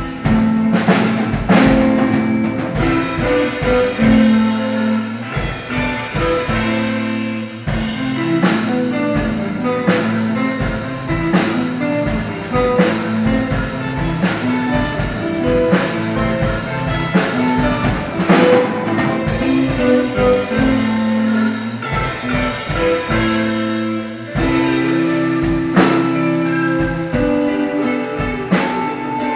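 Live instrumental psychedelic space rock: two electric guitars, electric bass and a drum kit playing together, with steady drum hits under held guitar notes.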